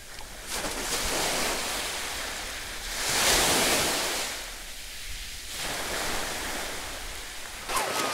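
Small sea waves washing in on a beach, rising and falling in slow surges, with wind on the microphone. Splashing through shallow water starts near the end.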